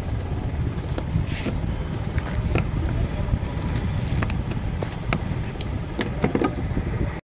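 Steady low background rumble, with scattered small metallic clicks and scrapes as a screwdriver works the screws in the steel housing of a 24 V Leyland starter motor.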